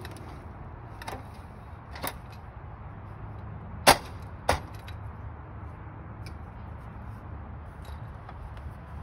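Sharp metal clicks and clacks from an RV awning's arm and roller-end hardware being worked by hand: two lighter ones, then the loudest, with a second loud one about half a second later.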